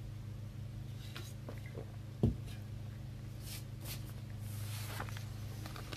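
Steady low hum in a small room, with faint clicks and rustles of small objects being handled on a desk, and a single low knock about two seconds in.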